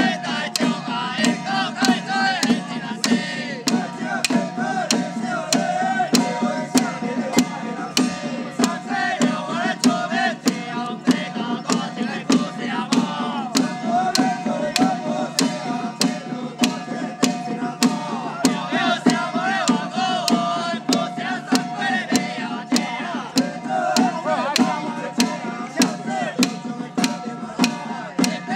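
Traditional temple ritual music: a wavering melody line over a steady beat of sharp percussion strikes about twice a second.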